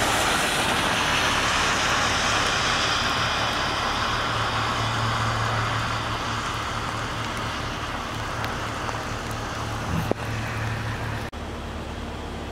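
Heavy rain on a flooded street: a steady hiss that slowly thins over several seconds, over a low steady hum. About a second before the end it cuts abruptly to a quieter, even hiss.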